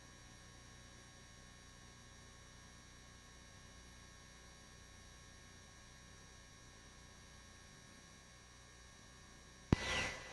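Faint steady electrical hum on a police radio audio feed, with thin steady tones. Near the end a sharp click and a short burst of noise as a transmission keys up, leaving a steady high tone.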